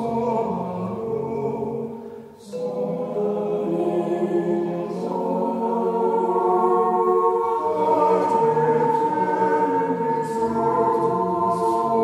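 Background music: a choir singing long held chords, with a brief pause about two seconds in.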